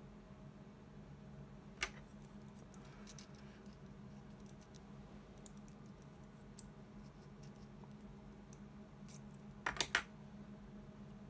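Small clicks and light rustling of a radial electrolytic capacitor being handled between the fingers, with a quick cluster of three sharper clicks about ten seconds in as it is set down on the bench. A steady low hum runs underneath.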